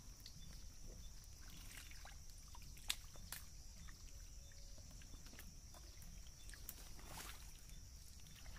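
Faint sloshing and trickling of shallow muddy water as hands grope through it for fish, with scattered small clicks and splashes, the sharpest about three seconds in.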